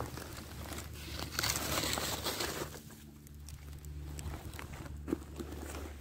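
A dry, weathered paper catalog page rustling and crinkling as it is picked up and handled, loudest about a second and a half in, with small scattered crackles.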